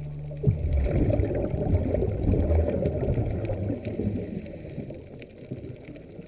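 Muffled underwater noise picked up through a camera's waterproof housing: a low rumble with a dense crackle of water and bubbles, starting suddenly about half a second in and fading toward the end.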